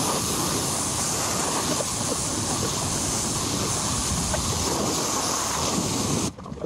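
Pressure-washer jet spraying water onto a motorcycle, a steady hiss that cuts off suddenly near the end.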